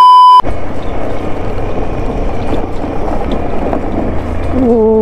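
A loud, short electronic beep at the start, then a motorbike engine running under load on a rough track, with wind buffeting the microphone. A brief pitched tone comes near the end.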